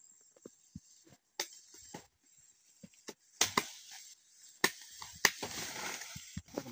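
Machete chopping freshly harvested cassava roots: several sharp, irregular chops, the loudest about halfway through, with rustling of the plant near the end.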